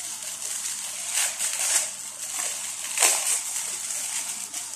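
Thin plastic film crinkling and rustling as it is peeled off burger patties, with sharper crackles about a second in, near two seconds and, loudest, about three seconds in.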